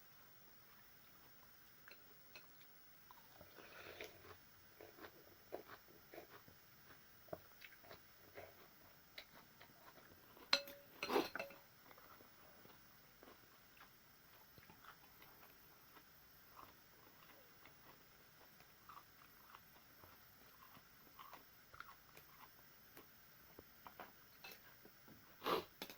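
Close-up eating sounds: quiet chewing and crunching of a bowl of noodle soup with fresh vegetables, with scattered light clicks of utensils on the bowl. A louder clatter comes about eleven seconds in and another near the end.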